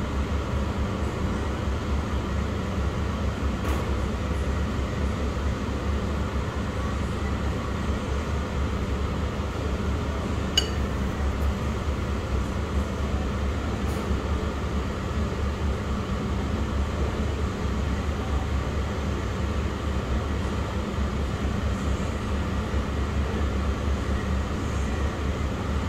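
Steady low rumbling background noise, with a single short ringing clink about ten seconds in.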